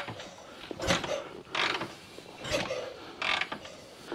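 Kick-starting a cold 1965 BSA Lightning Clubman's 650 cc parallel-twin: four kicks in a row, each under a second after the last. Each kick is a brief rasp of the kickstart ratchet and the engine turning over, and the engine does not catch.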